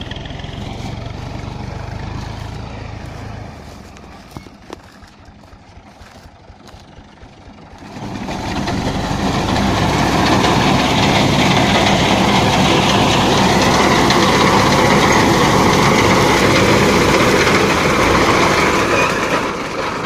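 Ghazi tractor's diesel engine running while its front-mounted reaper cuts standing wheat. Fainter for the first several seconds, then loud and close from about eight seconds in, with a steady dense noise from the cutter and crop over the engine's hum.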